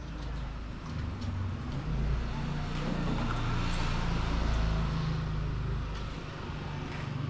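Low engine rumble of a passing motor vehicle, growing louder through the middle and easing off near the end, with a few faint clicks.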